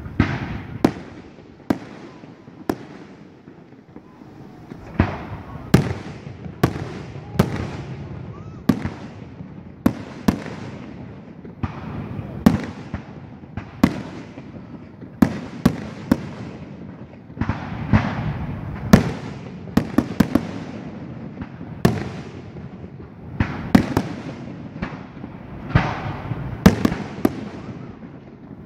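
Aerial fireworks shells bursting overhead, a steady run of sharp bangs about every second or two, each followed by an echoing rumble.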